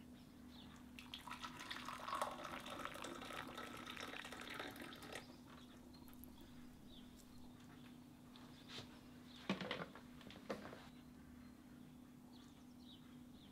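Liquid poured from a thermos jug into a ceramic cup for about four seconds, followed a few seconds later by two short knocks about a second apart, over a faint steady hum.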